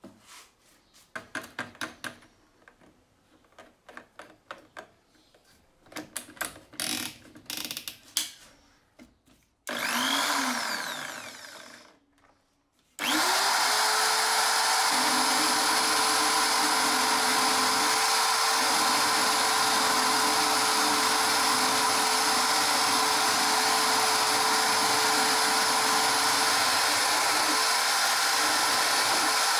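Clicks and knocks of metal parts being handled. Then a drill press motor runs up briefly and winds down, and about 13 seconds in starts again and runs steadily while a steel file shapes a bolt spinning in its chuck.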